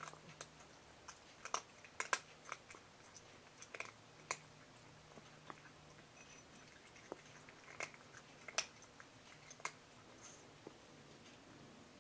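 A cat chewing its food, irregular sharp crunches coming in small clusters.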